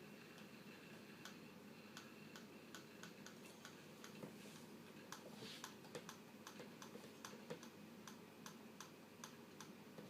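Faint, irregular clicking of a Compaq Evo N400c laptop's keys and buttons being pressed, sparse at first, then two to three clicks a second.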